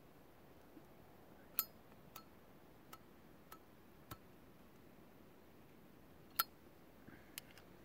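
Small sharp clinks as a briar pipe and a metal pipe tool are handled while the pipe is tamped and lit. There are five evenly spaced taps in the first half, then a louder single clink and a quick pair near the end.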